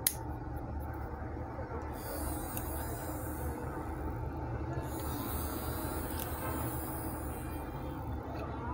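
Plastic parts of a cordless hair trimmer being handled and fitted back together: one sharp click at the start, then faint scraping and rustling over a steady low hum.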